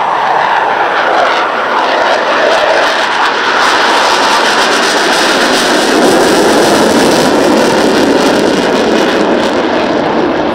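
Two Dassault Rafale M jets flying past in landing configuration, with the loud, steady jet noise of their twin Snecma M88 turbofans. The noise peaks around the middle and eases a little near the end.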